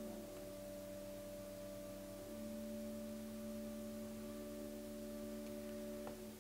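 A soft, held chord of pure, steady tones from a keyboard instrument; its lowest note steps down just after the start and back up a little past two seconds in, and the chord cuts off near the end.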